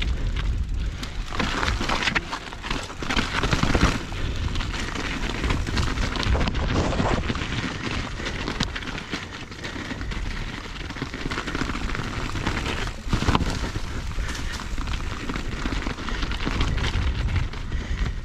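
Mountain bike rolling over rough, rocky trail: a continuous crunching, rattling tyre-and-frame noise with a heavy low rumble of wind on the microphone, broken by sharp knocks as the wheels hit rocks.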